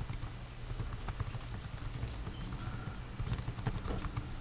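Computer keyboard being typed on: irregular key taps over a steady low hum.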